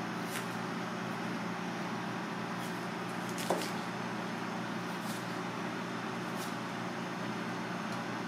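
Steady background noise and hum, with a few faint, brief ticks of a kitchen knife slicing napa cabbage leaves on a plastic cutting board. The sharpest tick comes about three and a half seconds in.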